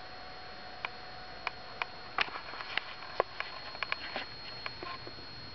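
Quiet room tone with a steady hiss and a faint high whine, broken by a dozen or so light, irregular clicks and ticks.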